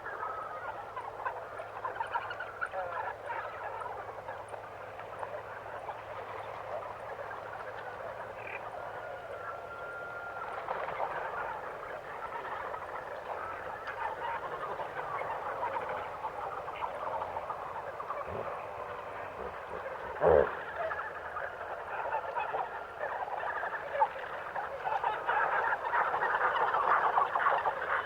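Nature ambience: a dense, continuous chorus of frogs, insects and birds calling, growing louder near the end, with one brief louder sound about twenty seconds in.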